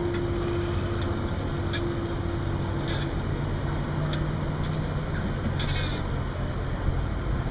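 Gas station fuel pump running while it fills a motorcycle's tank: a steady hum over a rushing noise, with a few faint clicks.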